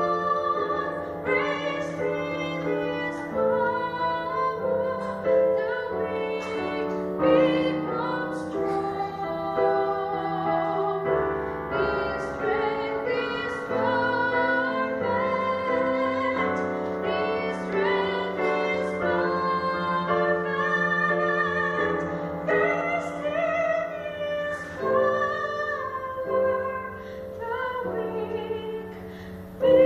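A woman singing a slow song into a microphone with piano accompaniment, holding long notes with vibrato.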